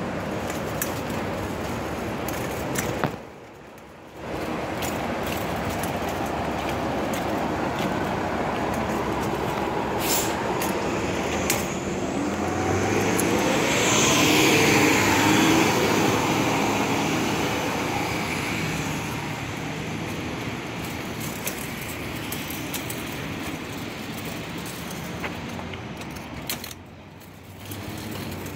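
Steady road traffic noise from passing vehicles, swelling and fading as one vehicle goes by close about halfway through. The noise drops away briefly twice.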